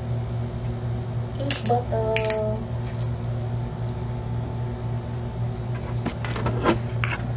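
Sharp clicks and cracks of a small plastic drink bottle's screw cap being twisted open and handled, about a second and a half in and again near the end, over a steady low hum.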